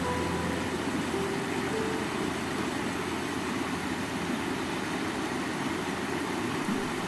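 Steady rush of a rocky stream, the water running over stones. A few soft music notes fade out in the first two seconds.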